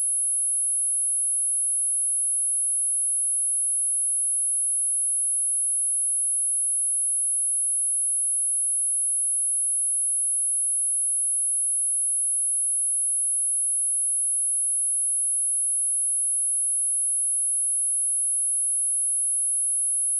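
A pure, steady, high-pitched sine-wave test tone at 10627 Hz, one unbroken note held at constant level.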